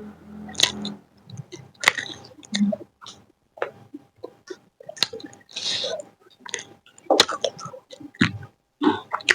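Close-up eating sounds: chewing chicken liver, gizzard and singju salad, with irregular wet smacks and sharp crunchy bites.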